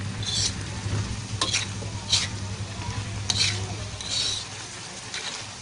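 Metal spoon scraping and stirring through saucy eggplant stir-fry, in about six separate strokes roughly a second apart.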